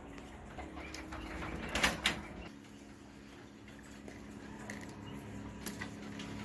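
Two sharp knocks in quick succession about two seconds in, with a few fainter clicks later, over a steady low hum.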